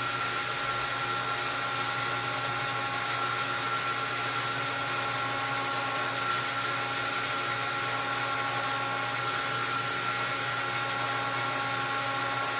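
Small metal lathe running with a steady whine while the cutting tool is fed slowly across the face of a piston.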